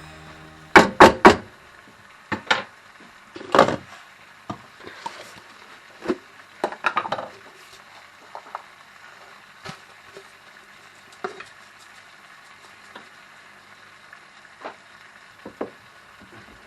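Scattered knocks and clatters of cookware and utensils being handled, with three loud knocks close together about a second in and fainter ones spaced out after.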